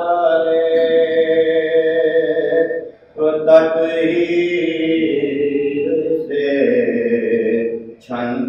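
Soz khwani: a mourning elegy sung unaccompanied in long, held, wavering notes. The singing breaks off briefly about three seconds in and again near the end.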